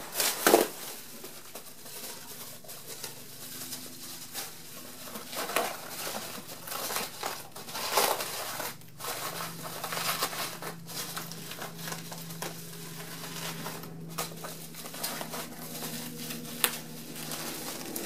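Sheets of small-bubble plastic bubble wrap crinkling and rustling as they are handled and tucked into place, with irregular sharper crackles.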